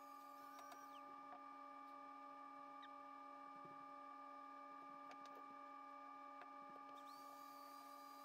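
Near silence: a faint steady hum with a few faint clicks.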